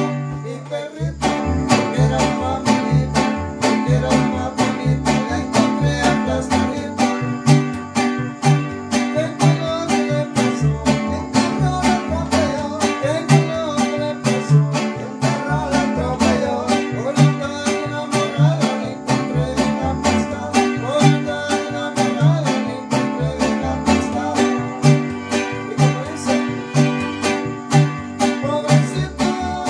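Music played on plucked string instruments, guitar-like, strummed in a fast, steady rhythm over a bass line that alternates between two low notes.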